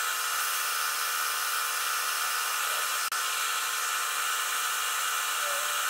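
Atlas metal lathe running steadily, its motor and gear train giving a high, even whine as a part spins between centers and is turned concentric.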